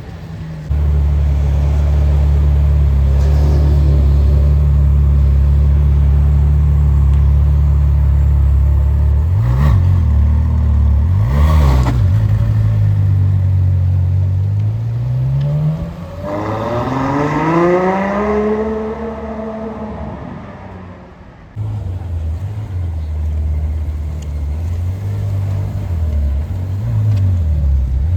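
Ferrari 812 Superfast's 6.5-litre naturally aspirated V12 idling, with two quick throttle blips about ten seconds in. A longer rev follows, climbing and then holding high for several seconds before it drops away. It then settles back to idle, with one more short blip near the end.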